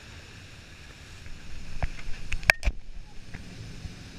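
Jet boat under way on rough white water: a steady rush of water and engine noise with wind on the microphone, broken by a few sharp knocks a little before and after two and a half seconds in.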